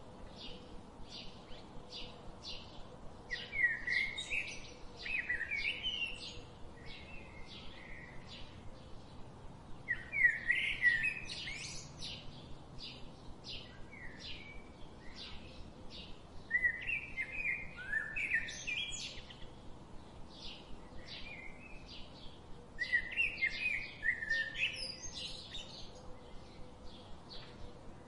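Songbirds singing: a steady series of short, high chirps about two a second, with a louder warbling song phrase breaking in roughly every six seconds.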